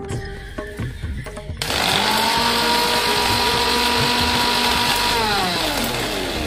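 Electric mixer grinder dry-grinding dried red chillies, tamarind and salt. It starts suddenly about a second and a half in, runs with a steady whine, then winds down with a falling pitch near the end.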